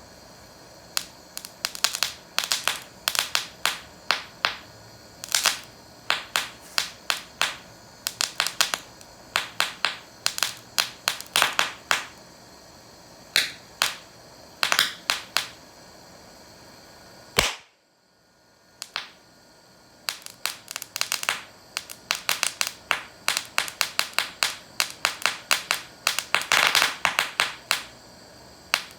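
Rapid, irregular sharp bangs like a string of firecrackers going off, coming in clusters of several a second with short gaps, from a homemade 'bucket of bangs' firecracker substitute. A single sharp crack comes about two-thirds of the way through, followed by a moment of near silence.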